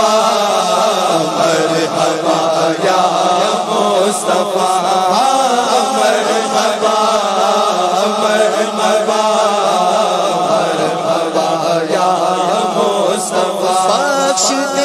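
Many men's voices chanting together in a continuous devotional chant, steady and loud throughout.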